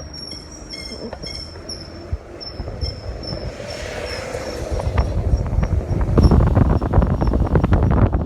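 A Ford Flex making a high-pitched squeal, steady at first and then turning into a pulsing chirp after about three seconds. Underneath, rumbling road noise with rattling grows steadily louder.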